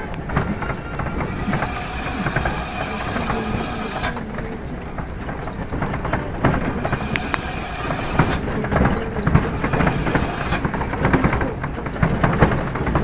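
A vehicle running, with a steady clatter of rattles and small knocks over the engine.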